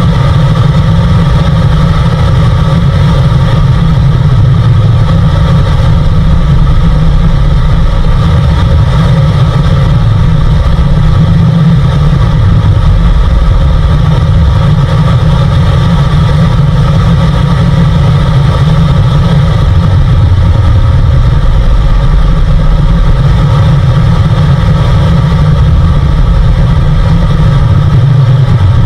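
Car radio tuned to an empty station, playing loud static with a very deep, steady sound underneath it, heard through the car's speakers.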